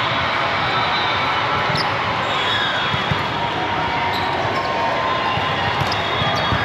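Ball thudding a few times on a gym court over steady crowd chatter, with a few brief high squeaks.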